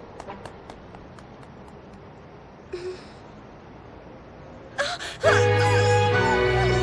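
Quiet at first, then about five seconds in a woman gasps in pain, and a loud dramatic music chord starts right after and is held.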